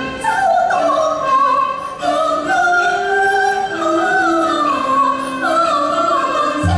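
Cantonese opera singing: a high voice holding and sliding between long notes over the band's melodic accompaniment, with no drums or low instruments under it.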